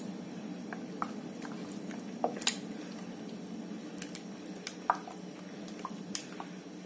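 Wet squelching as a bare hand mixes chicken pieces through a thick cashew, yogurt and cream marinade, heard as a scatter of short sticky clicks and smacks over a low steady hum.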